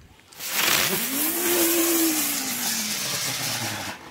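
Wilde Hummel ground-spinner firework burning: a loud hissing jet with a humming whirr that climbs in pitch over the first second, then slowly sinks, and stops just before the end.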